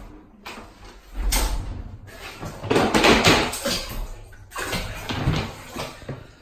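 Rustling of a towel or blanket and handling knocks, heard as a few noisy bursts, the loudest about three seconds in.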